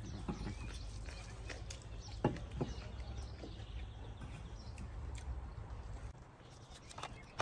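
Eating sounds: scattered clicks of chewing and lip smacking, and fingers mixing rice on steel plates, over a low steady rumble that drops away about six seconds in.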